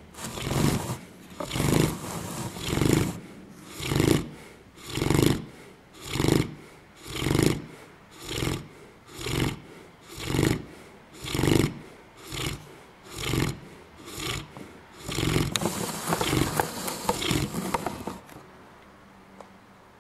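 A dog snoring loudly and rhythmically, about one rasping snore a second. Near the end the snores run together into a couple of seconds of steadier rasping before they stop.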